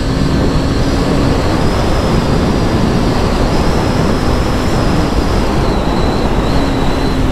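KTM Duke 250 single-cylinder engine running at cruising speed, mostly buried under steady wind rush and road noise on the rider's microphone.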